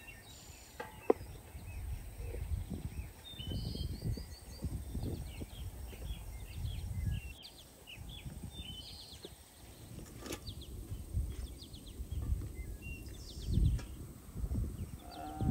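Wind gusting on the microphone as an uneven low rumble, with small birds chirping repeatedly in short high notes. A sharp click comes about a second in.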